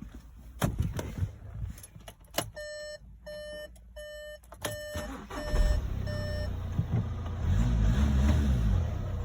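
A few clicks, then a car's warning chime beeping several times, then the VW Touran's 2.0 TDI four-cylinder diesel starting about halfway through, briefly rising and settling into a steady idle.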